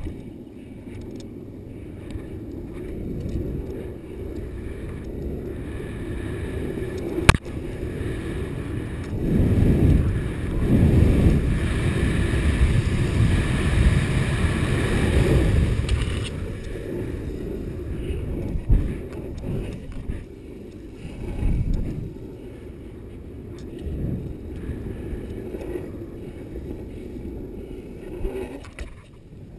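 Skateboard wheels rolling at speed down a steep wet road: a steady rushing noise that builds and is loudest about halfway through, with a sharp knock about seven seconds in and a few smaller bumps later.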